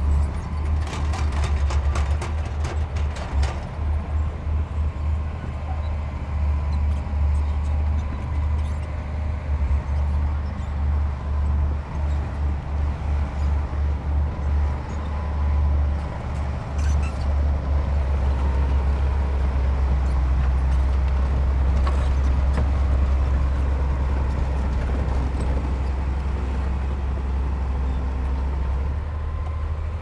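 Heavy earth-moving machine's diesel engine running with a deep rumble that pulses unevenly for the first half, then holds steady. A quick run of metallic clanks or knocks comes in the first few seconds, and a few single knocks follow later.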